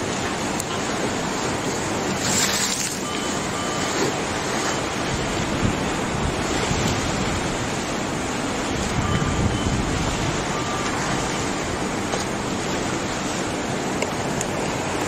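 Tsunami seawater surging and churning through a fishing harbour: a steady rushing wash of water, with wind buffeting the microphone and a brief sharper hiss about two and a half seconds in.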